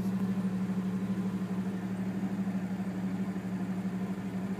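1997 Jeep Grand Cherokee ZJ's 4.0 straight-six idling steadily, heard from inside the cab as an even low hum with a slight pulse.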